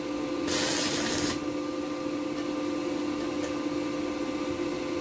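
Arc welding machine humming steadily, with about a second of loud hissing crackle from the welding arc about half a second in, as the electrode is struck on the tractor lift arm.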